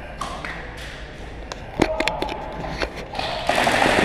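Airsoft gunfire in a large warehouse: scattered sharp cracks and taps of shots and BBs striking plywood and cardboard barriers, then a dense stretch of rapid fire near the end.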